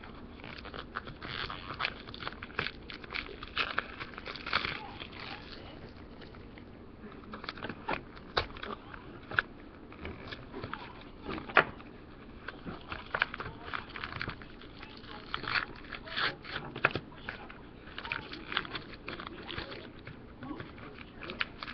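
Plastic blind-bag packet crinkling and crackling irregularly as fingers squeeze and twist it, working at opening it.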